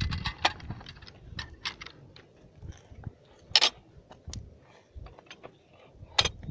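Metal parts of a 14.5 mm anti-aircraft machine gun clicking and clacking as they are worked by hand: scattered light clicks, with a louder metallic clack about half a second in, a sharper one about halfway through, and another near the end.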